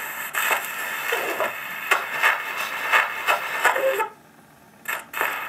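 Acoustic gramophone needle set down on a spinning shellac disc: loud surface hiss and crackle with faint snatches of the record's opening. The sound drops out for under a second near the end, then resumes.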